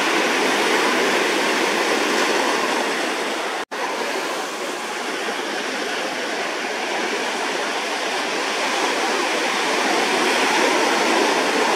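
Steady rushing of breaking surf and foaming wash. The sound cuts out for an instant a little under four seconds in.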